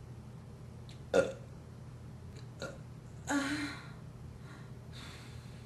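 A woman burping up gas: a short, loud burp about a second in, then a longer, lower burp about two seconds later.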